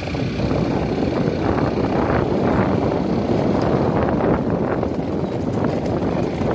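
Steady rushing noise of a vehicle travelling along a road, heard from on board.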